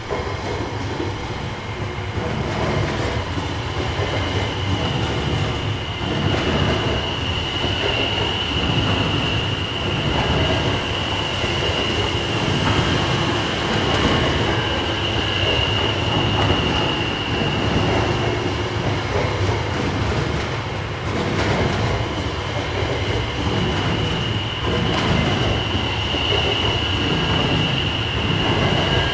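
Electric train passing close by: a continuous rumble and rattle of wheels on rails, with a steady high whine held through most of the pass.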